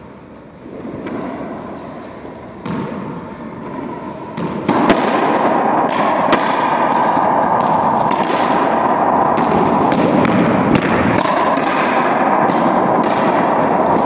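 Racquetball rally in an enclosed court: sharp cracks of the rubber ball off racquets and walls, few at first, then one every half second or so from about five seconds in, with heavy court echo filling the gaps between hits.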